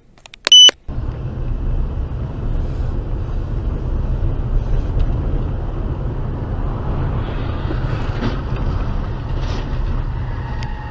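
A short, loud, high-pitched electronic beep under a second in, then the steady rumble of a car driving along a wet road, heard from a dash camera inside the car.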